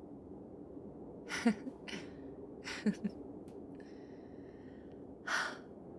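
A woman's soft, close-up, wordless breath sounds: two short hums or breathy laughs with falling pitch, then a breath out near the end, over a steady low background hum.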